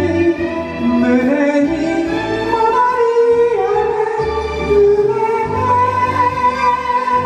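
A woman singing an enka ballad into a microphone over instrumental backing, drawing out long held notes.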